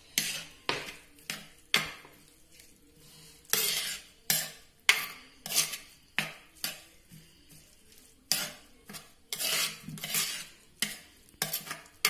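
Steel ladle stirring a wet mixture of crushed coconut and cut colocasia stems in a clay pot, scraping and clinking against the pot's sides: an uneven run of short strokes, about two a second, with a few longer drawn scrapes.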